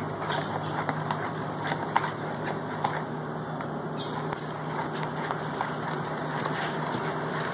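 Spoon stirring a watery slime mix in a plastic mixing bowl, with irregular light clicks and scrapes as it knocks against the bowl, over a steady background hum and noise.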